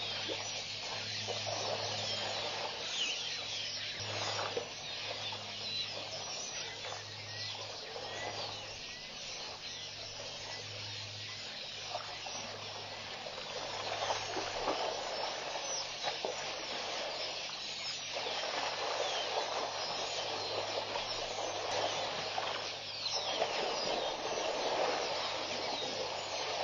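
Dense chorus of many small birds chirping and calling at once, swelling and easing in patches, over a steady low electrical hum.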